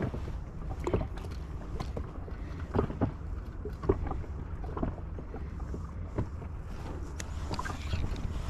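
Water lapping and slapping against the hull of an inflatable boat, with a low wind rumble and scattered small, irregular knocks.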